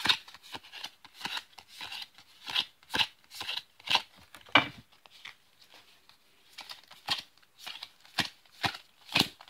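Yu-Gi-Oh foil trading cards being flipped through and dealt onto piles by hand: irregular quick flicks and slaps of card stock, a few a second at times, with a short lull about five seconds in.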